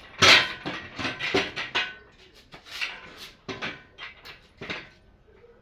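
A run of irregular metallic clanks, knocks and rattles from tools and engine parts being handled. The loudest clank comes about a quarter second in, and the rest thin out toward the end.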